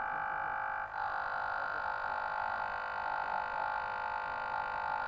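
A steady, high-pitched electrical whine made of several fixed tones, with a brief dip about a second in.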